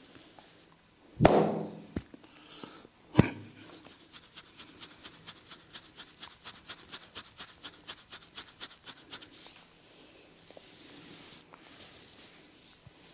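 A barber's hands on a head during a massage: two loud slaps, then a long run of light fingertip taps at about six a second, then a soft scratching rustle of fingers in the hair near the end.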